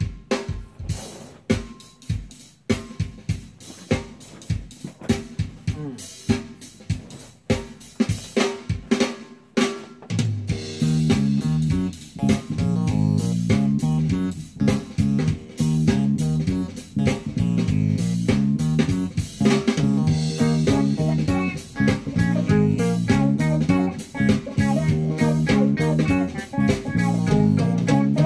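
Playback of a recorded drum kit whose room mics are heavily limited with an API 2500 compressor plugin, set to very fast attack and release, which brings up the room ambience into a big drum sound. For about the first ten seconds the drums play alone; then bass and guitar come in for the full mix.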